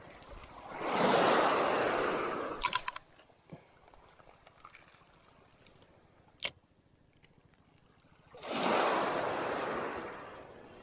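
Small waves washing up on a pebble shore twice, each wash swelling up and dying away over about two seconds. About halfway between the two washes there is a single sharp click.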